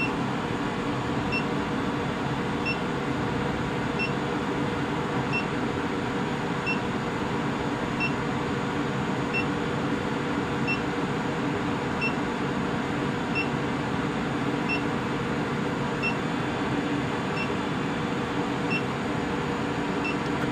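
A 25 kW induction heater running steadily with an even hum while it heats a crucible of steel rivets from cold to red heat. A short high beep repeats about every second and a third.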